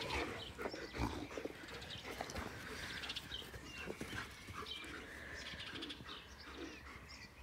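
White shepherd dogs panting and shuffling about close to the phone, with fur brushing against the microphone.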